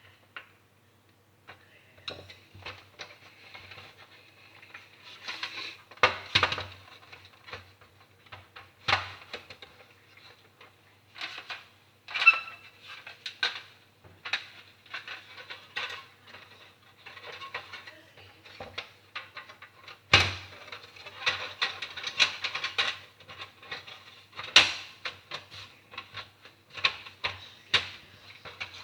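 Irregular clicks, taps and knocks of small plastic and metal console parts being handled and fitted, over a faint steady hum.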